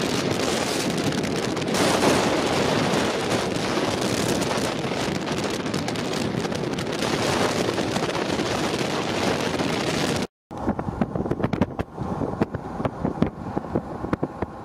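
Wind rushing over the microphone with road noise from a vehicle driving along a highway. About ten seconds in the sound cuts out for a moment, then returns quieter, with uneven gusts of wind buffeting the microphone.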